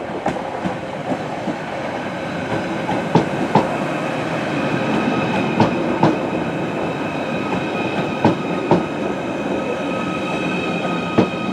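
Merseyrail Class 777 electric multiple unit running slowly into the platform, with a steady rumble and a steady high whine. Its wheels click in pairs as each bogie crosses a rail joint, and the pairs come about every two and a half seconds, spacing out a little as it slows.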